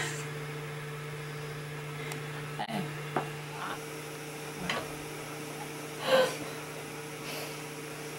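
A steady low electrical hum, with a few soft knocks and rustles, the loudest about six seconds in.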